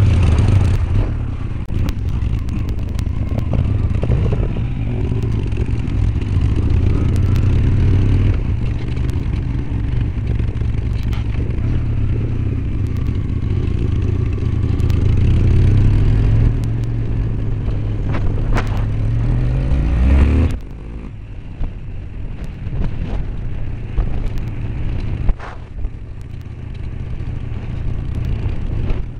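A 2000 Honda Shadow Aero 1100's V-twin engine running while riding, mixed with wind rumble on a helmet-mounted microphone. It is loud and steady for about two-thirds of the way, then rises briefly in pitch and drops sharply in level.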